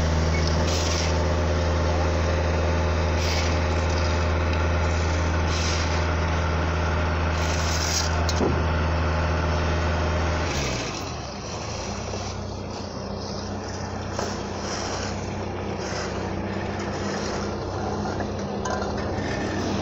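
Engine of heavy road-paving equipment running steadily, with short scrapes every couple of seconds from shovels and rakes working asphalt. About ten and a half seconds in, the loud hum stops and a quieter, different engine hum takes over.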